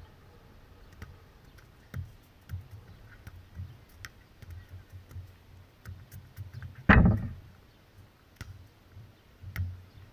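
Wind buffeting the microphone in an uneven low rumble, with faint scattered clicks and one loud thump about seven seconds in.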